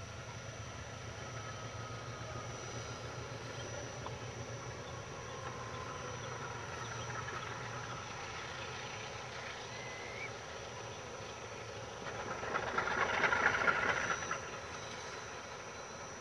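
Freight train led by a GE class 33 (U20C) and two class 35 (U15C) diesel-electric locomotives approaching slowly, with a steady low engine rumble. About twelve seconds in, a louder hiss swells for about two seconds, then fades.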